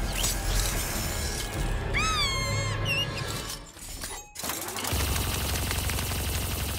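Animated-film action sound mix with music: a rat's high squeal, rising then falling in pitch, about two seconds in, and a shorter squeak a second later. After a brief drop-out comes a steady buzzing hum from about five seconds on, the robot turret's laser beam firing and vaporising a rat.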